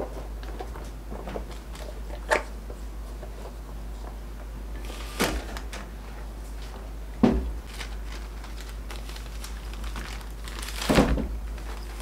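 A round metal cake tin holding a freshly baked pound cake being banged down once and the cake, in its parchment lining, lifted out onto a wire cooling rack: four separate knocks and thumps, the heaviest about seven seconds in, and a longer paper rustle near the end. A steady low hum runs underneath.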